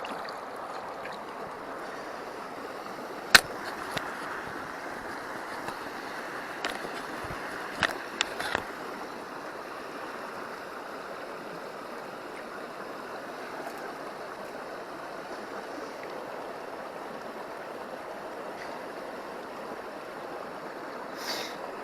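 Steady rushing of a stream, with a few sharp clicks or knocks: a loud one about three seconds in and a short cluster around eight seconds.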